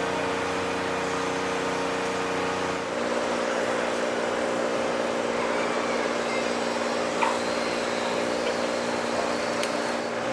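Car running, heard from inside the cabin: a steady hum over road and air noise, with the hum's pitch stepping up about three seconds in, and a single short click about seven seconds in.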